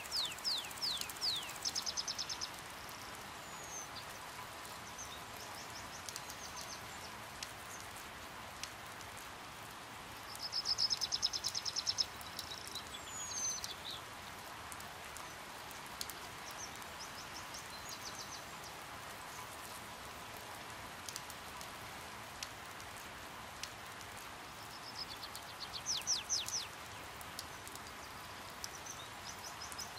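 Steady hiss of light rain with scattered drips. Over it, small birds several times give rapid, high trills of quickly repeated notes, each lasting a second or two.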